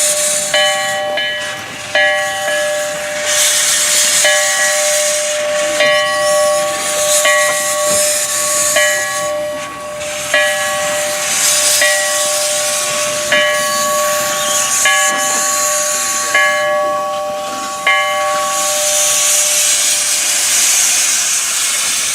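Steam locomotive's bell ringing, struck about every second and a half, over loud hissing steam that swells and fades in bursts.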